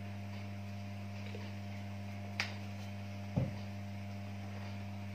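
Steady low mains hum, with a sharp click about two and a half seconds in and a dull knock about a second later as the small bottle of linseed oil is set down.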